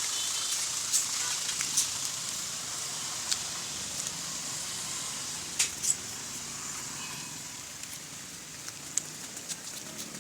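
Road noise of a passing vehicle, a steady hiss that slowly fades away, with a few scattered sharp clicks.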